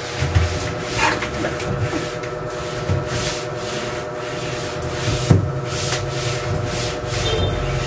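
A cloth rubbing across PVC ceiling panels in repeated back-and-forth wiping strokes, making a swishing rub about once or twice a second as dust is wiped off.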